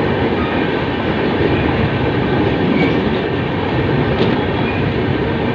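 Express train running at speed on the track, a steady, loud noise of wheels on rails.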